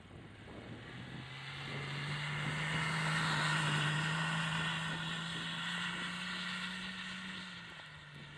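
Nissan Patrol GR Y60's 2.8 straight-six turbodiesel pulling hard as the 4x4 drifts through snow. The revs climb about a second in and hold, with a rushing hiss of tyres and spraying snow. The sound swells as the truck comes close, then fades as it pulls away.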